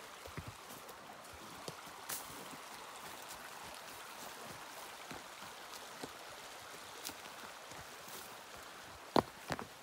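Mountain creek water running steadily, with scattered light clicks and two sharp knocks near the end.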